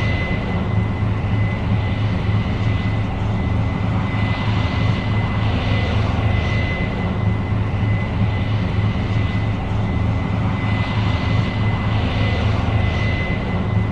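Case IH 8230 Axial-Flow combine running steadily under harvest load: a deep, even engine drone with a thin, steady high whine over it.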